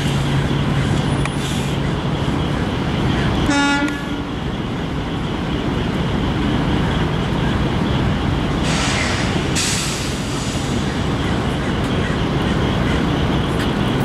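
Steady street traffic noise, with one short vehicle horn beep about three and a half seconds in and a brief hiss around nine seconds in.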